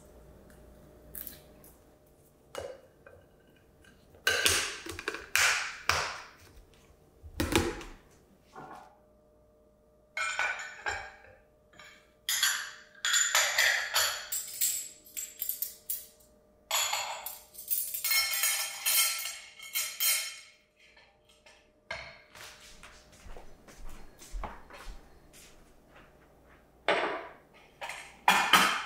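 Ceramic bowls and plates clinking and clattering as they are gathered up and stacked on a glass-topped table. The knocks come in quick runs with short clinking rings, and there are two sharp knocks near the end.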